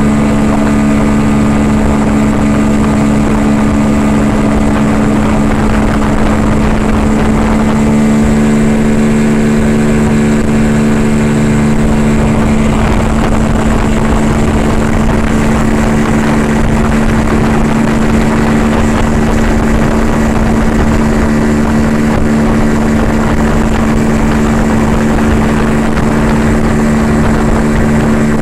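40 hp Yamaha outboard motor running at a steady towing speed, a constant even engine tone, with the rush of water churning in the wake.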